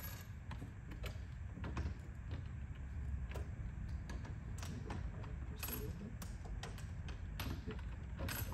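Metal cabinet tray being shifted and settled onto L-track studs: scattered small metallic clicks and knocks, a few sharper ones near the end, over a steady low room rumble.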